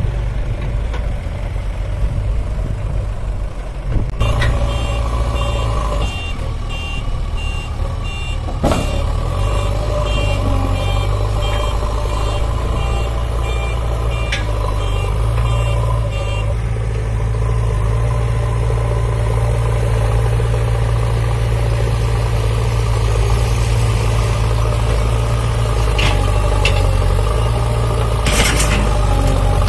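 Heavy diesel machinery running steadily, with a JCB 3DX backhoe loader's reversing alarm beeping rapidly for about twelve seconds before stopping. A few short knocks sound over the engine.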